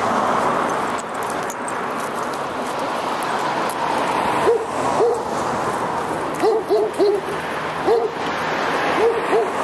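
A dog barking in short calls, singly and in quick pairs and triples, starting about four and a half seconds in, over a steady rush of background noise.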